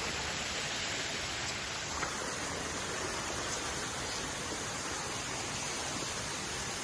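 Waterfall, a steady wash of falling water.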